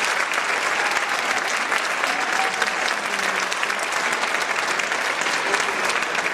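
Large audience applauding steadily, dense clapping from many hands.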